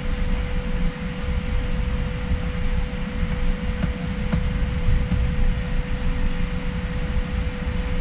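Steady mechanical hum, a constant low rumble and airy hiss with a single unchanging mid-pitched tone, with a couple of faint clicks around four seconds in.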